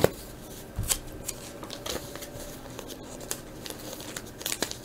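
Trading cards being handled and flipped through by hand, with plastic card sleeves rustling: scattered light clicks and soft scraping.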